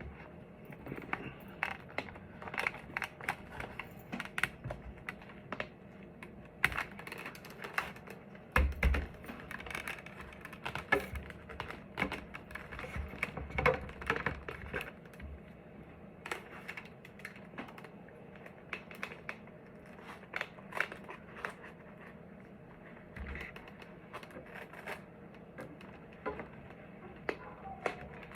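Hands working inside a motorcycle helmet, fitting the cheek pads back in and tucking intercom wires away: irregular small clicks, taps and rustles, with an occasional low bump.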